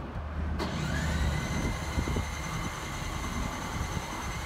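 A camper van's onboard generator being started: about half a second in, a whine rises and then holds steady while it cranks, cutting off abruptly near the end.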